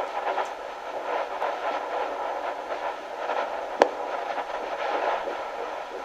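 Fetal Doppler monitor's speaker giving a rapid pulsing whoosh over hiss: an early-pregnancy fetal heartbeat picked up at a first check-up. A sharp click nearly four seconds in.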